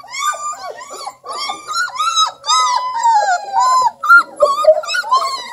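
Three-week-old Redbone Coonhound puppies whining and crying, a quick string of short high-pitched cries that rise and fall, often two puppies at once.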